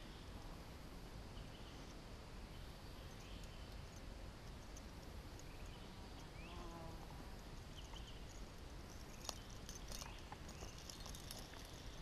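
Faint river-swamp ambience with scattered insect and bird calls, and a few sharp clicks in the last few seconds from fishing tackle being handled.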